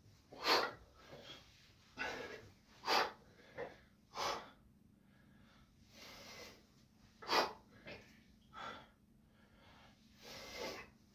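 A man's heavy, forceful breathing as he strains through pull-ups weighted with a 20 kg backpack: about nine sharp exhalations one to two seconds apart, with short gaps between.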